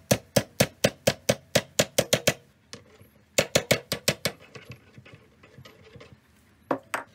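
Small tap hammer striking a greased bushing to drive it the rest of the way into the bushing housing of an SPC upper control arm. Quick, even taps about four to five a second, a pause a little past two seconds, a second run, then lighter, more scattered taps.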